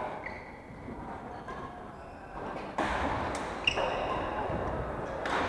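Badminton play: sharp racket hits on the shuttlecock, several of them in the second half, with short squeaks of shoes on the wooden court floor.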